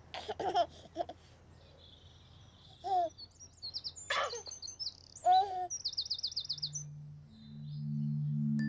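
Baby giggling and cooing over birdsong: high chirps and a fast trill. Soft low music tones begin near the end.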